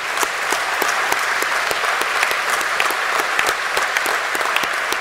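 An audience in a large hall applauding steadily, a dense wash of many people's clapping.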